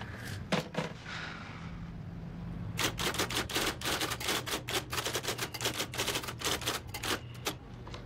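Typewriter keys clacking in a fast run of typing that starts about three seconds in and lasts some four seconds, after two single clicks near the start, over a faint steady low hum.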